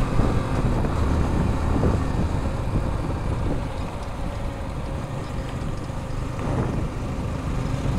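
Motorcycle under way on the road: a steady low rumble of engine and road noise, with wind on the rider's microphone.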